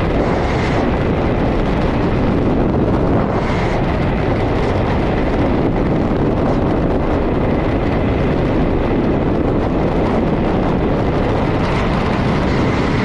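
Loud, steady rush of freefall airflow over a skydiving camera's microphone, unbroken throughout.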